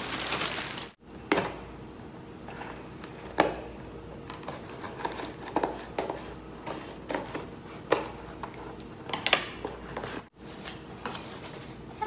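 A cardboard box being opened: scissors snipping and scraping along the packing tape, with irregular clicks and rustles of cardboard and plastic being handled.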